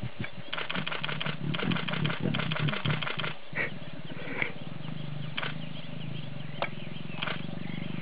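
Lion growling: harsh rasping snarls for the first three seconds or so, then a low, steady rumbling growl.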